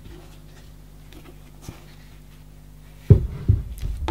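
A faint steady hum, then about three seconds in several dull thumps in quick succession as the Fractal Design Define R4's bitumen-lined side panel is handled and laid down.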